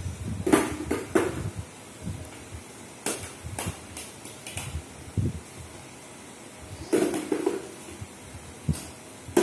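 Small plastic balls thrown across a room, landing and bouncing on a tiled floor and knocking against a plastic wastebasket: a series of sharp knocks and short rattles at irregular intervals.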